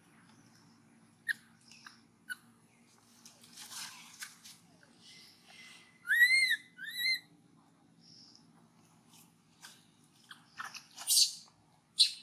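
Baby capuchin monkey giving two short, high-pitched whistling squeaks about six seconds in, each rising then falling in pitch. Around them are small mouth clicks and soft puffs of breath.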